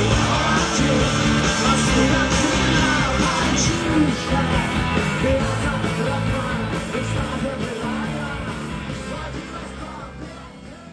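Live rock band playing, with a singer's voice over drums and guitars; the music fades out over the last few seconds.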